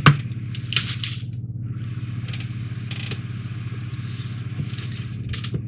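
Small model-kit parts, one of them metal, being handled on a table: a few sharp clicks at the start, a brief crinkle of plastic packaging about a second in, then a few lighter ticks, over a steady low hum.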